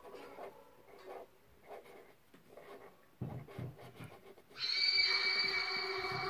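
Felt-tip marker scratching on paper in short, repeated colouring strokes. About four and a half seconds in, music starts loudly with a held synth-like tone.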